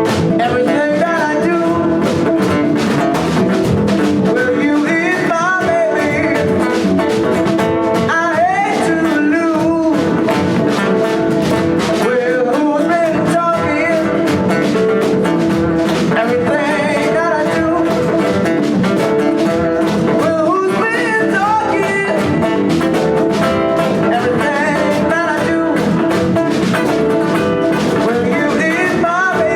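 Live band playing a blues-rock number, with electric guitar and drum kit, and what may be a lead voice over it.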